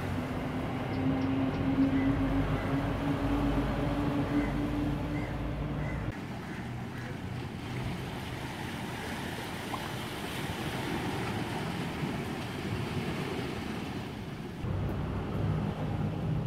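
Wind and water by the shore with a steady motor drone that rises slightly in pitch over the first six seconds. The drone then stops and only a quieter hiss is left, until the low wind rumble returns near the end.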